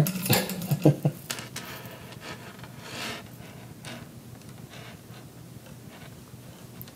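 A small metal chain clinking as it is pulled through a statue's hand, with a few light clicks in the first second or so. Then soft rubbing and handling noise follows as the chain drags against some resistance.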